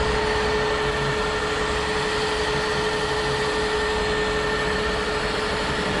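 Metal lathe running with its chuck spinning while turning a steel part, quite loud, a steady whine held over an even mechanical noise.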